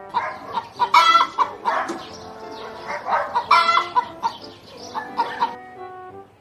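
Chickens clucking in a quick run of calls that stops about five and a half seconds in, with background music underneath.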